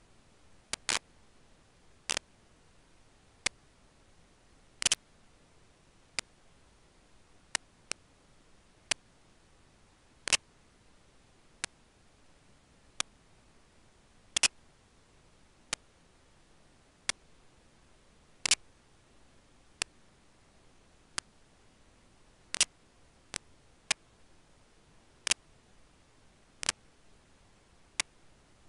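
Sharp single clicks in a steady rhythm, about one every second and a half, with a few extra clicks in between, over a faint hiss.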